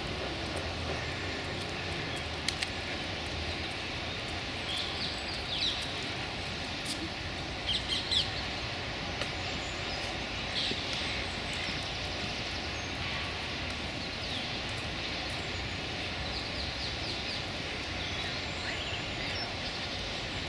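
Steady outdoor park ambience: a continuous low hum of distant traffic, with short high chirps of small birds scattered through, a cluster about five to eight seconds in and more near the middle and near the end.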